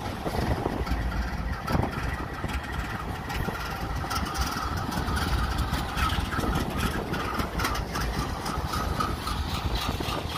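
CN diesel freight locomotives passing close below, their engines running with a steady low rumble, then tank cars rolling by with a patter of clicks from the wheels on the rails.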